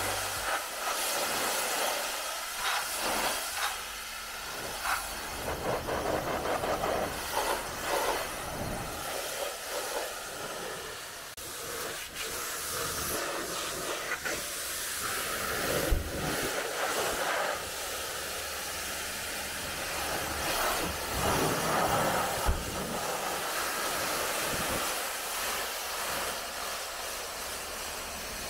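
Pressure-washer water jet hissing as it sprays across the car's foam-covered bodywork, rising and falling as the spray moves, with a couple of brief knocks partway through.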